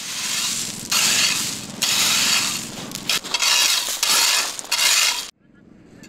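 Rake scraping and clattering through loose shingle pebbles in about six strokes, each under a second long, stopping abruptly about five seconds in.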